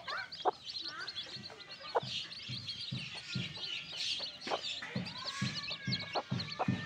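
A brood of newly hatched chicks peeping constantly in quick, high chirps, with a hen clucking low and repeatedly from about two and a half seconds in. There are a few sharp taps among them.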